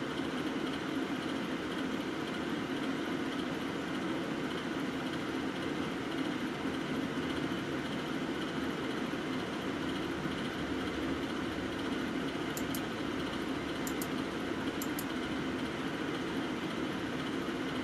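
Steady low background hum with a few faint clicks about two-thirds of the way through.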